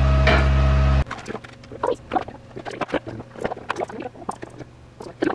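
A loud, steady low machine hum cuts off suddenly about a second in. After that come scattered light clicks, taps and handling knocks as two-part epoxy is poured from a plastic cup over electromagnets set in a round steel enclosure.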